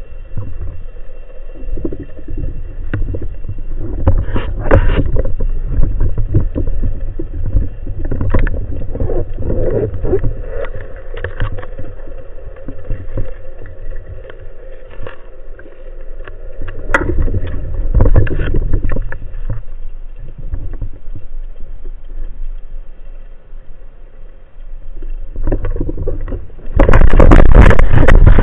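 Muffled underwater noise through a speargun-mounted action camera's housing: water rushing past with a low rumble and scattered knocks and clicks of handling. About 27 seconds in, a sudden, much louder rush of water starts and holds.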